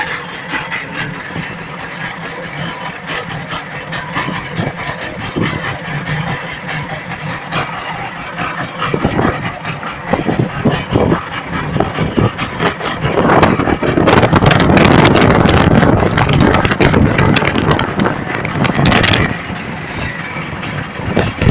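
Boat engine running steadily, with a louder rushing stretch for several seconds past the middle.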